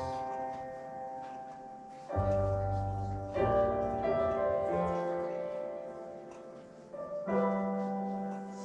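Background music: gentle piano-like chords, struck about every few seconds and left to fade.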